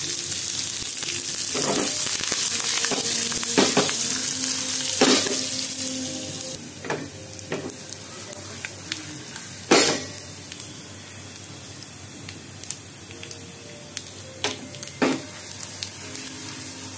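A tadka of curry leaves, mustard seeds, cumin, crushed ginger-garlic and dried red chillies sizzling in hot oil in a frying pan. The sizzle is loud for about six seconds, then settles to a quieter steady frying, with scattered clinks of a spoon against the pan as it is stirred.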